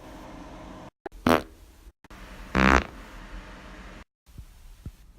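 Two human farts, each a short pitched rasp: one about a second in, and a second, longer one a little past the middle.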